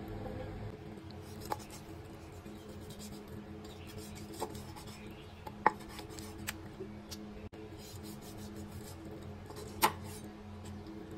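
Kitchen knife cutting raw chicken wings on a chopping board: soft slicing and rubbing of the blade through skin and meat, with a few sharp knocks of the knife against the board, the loudest about five and a half and ten seconds in.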